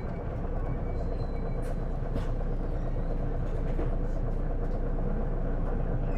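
Interior running noise of an Isuzu Erga (PJ-LV234L1) city bus: a steady engine and drivetrain rumble inside the passenger cabin, holding even with no clear change in pitch.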